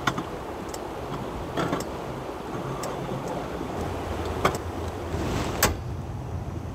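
Wind buffeting the microphone: a steady rush with a low rumble that swells in the second half, broken by a few sharp clicks.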